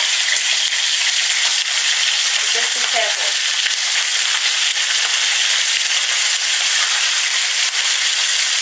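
Chicken breasts frying in oil in a pan: a steady, loud sizzle, the oil running hot enough to be sizzling a fair amount.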